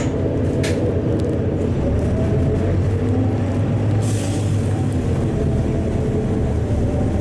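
LiAZ-4292.60 city bus's engine and drivetrain running steadily under way, heard from inside the passenger cabin. Two short clicks near the start and a brief hiss about four seconds in.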